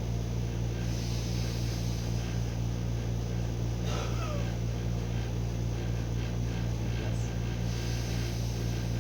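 Steady low electrical hum, with faint slow breaths drawn in and let out during a deep-breathing exercise. A short faint meow comes about four seconds in.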